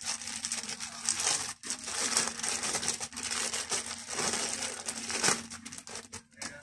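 Small clear plastic bag crinkling and rustling as hands handle and open it.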